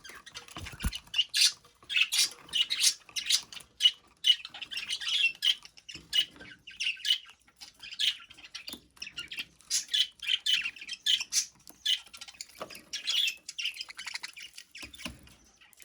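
Pet budgerigar chattering: a rapid run of short, high chirps and squawks with brief pauses between them.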